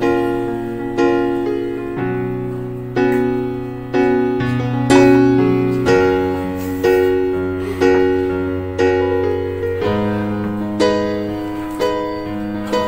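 Background piano music: slow chords struck about once a second, each fading away, over a bass note that changes every couple of seconds.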